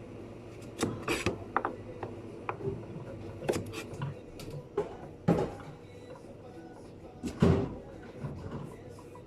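Irregular knocks and clicks of kitchen work, things set down and handled on a counter, with the loudest knocks about five and seven and a half seconds in, over a steady low hum.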